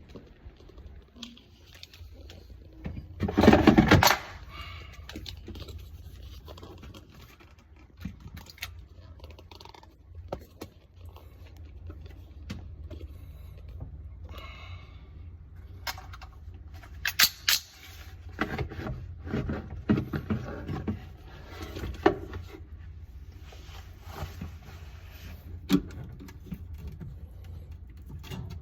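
Scattered knocks, clicks and scrapes of hard parts being handled, with a loud scraping burst about three seconds in and a run of clattering later on, over a steady low hum.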